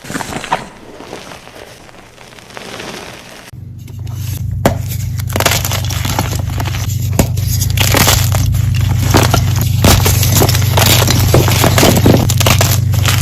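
Gym chalk crushed in a bucket: soft crumbling at first, then about three and a half seconds in a switch to loud, dense crunching with many sharp crackles over a steady low hum.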